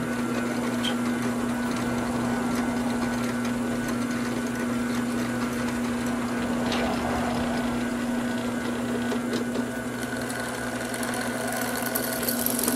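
Drill press motor running with a steady hum. Near the end the twist bit starts cutting through a thin sheet-metal tab, adding a higher hiss.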